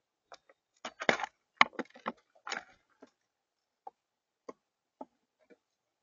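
Birds' beaks pecking at peanuts and seeds on a feeder table: a quick flurry of sharp taps and knocks in the first half, then single pecks about every half second.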